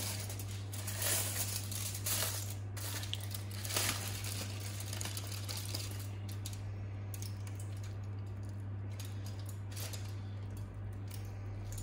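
Aluminium foil crinkling as it is peeled back off a roasting tray, densest in the first few seconds and then in scattered crackles, over a steady low hum.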